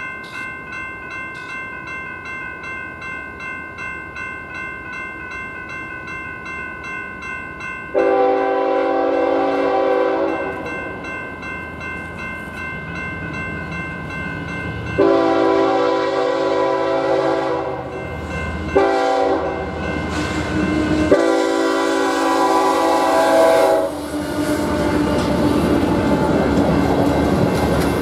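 Grade-crossing warning bell ringing steadily at about two strikes a second. About eight seconds in, a freight locomotive's horn sounds the grade-crossing signal (long, long, short, long), and right after the last blast the freight train passes through the crossing with its wheels clattering over the rails.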